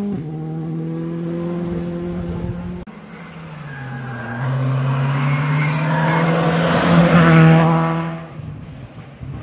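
Rally car engines at full throttle. One car holds a steady high engine note until a sudden cut. A second car's engine dips briefly in pitch, then climbs as it approaches, is loudest as it passes about seven seconds in, and fades.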